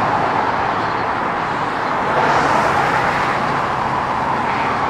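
Steady freeway traffic noise: the tyres and engines of passing cars and trucks making a continuous rushing hum.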